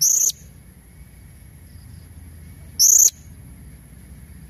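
Female blue-crowned hanging parrot (serindit) giving two short, sharp, high-pitched calls about three seconds apart, played as a lure for males. A faint steady high tone runs underneath.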